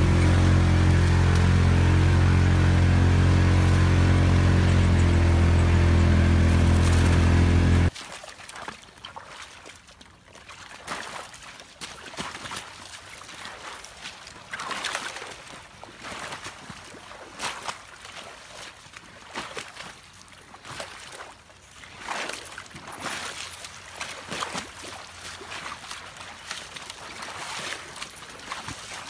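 A vehicle engine runs steadily at an even pitch for about eight seconds, then cuts off abruptly. After that comes irregular sloshing and splashing of someone wading through shallow floodwater among corn stalks.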